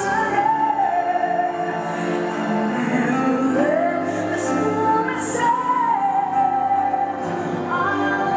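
Rumba music playing: a sung melody of long, sliding notes over a sustained accompaniment.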